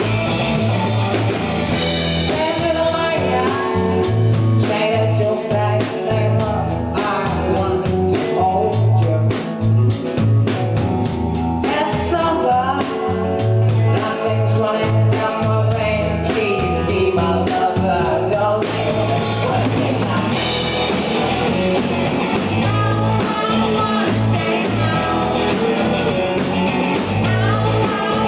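Live rock band playing, with electric guitars, electric bass and drum kit, and a male lead vocal singing over them.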